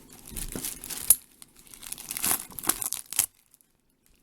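Thin plastic packaging bag crinkling as it is handled, in irregular crackly bursts with one sharp crackle about a second in; it stops abruptly about three seconds in.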